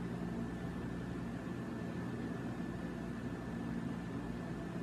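Steady room tone: an even hiss with a faint low hum and a thin, steady high whine, and no distinct sounds.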